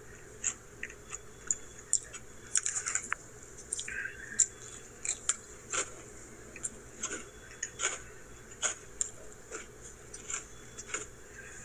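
A person biting and chewing mint chip cream Oreo cookies, with irregular crisp crunches.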